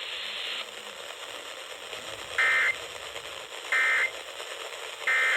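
Emergency Alert System end-of-message signal received over the air: three short, identical bursts of warbling digital data tones, evenly spaced from about halfway in, over a steady hiss of radio static. The bursts mark the end of a severe thunderstorm warning broadcast.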